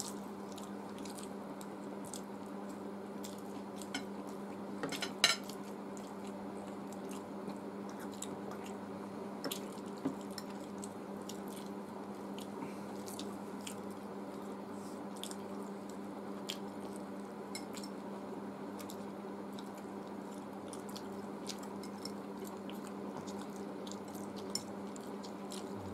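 Eating sounds: a fork clinking and scraping on a glass plate of chowmein, with chewing, as scattered small clicks and a louder clink about five seconds in. A steady low hum runs underneath.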